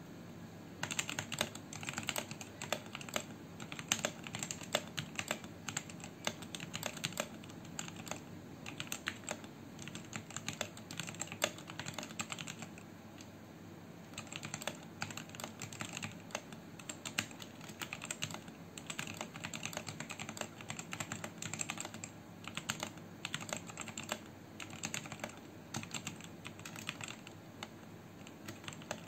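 Fast typing on a mechanical keyboard fitted with foam underneath and clipped stabilizers, mods meant to cut its hollow sound and rattle. The key clicks stop for about a second and a half near the middle, then carry on.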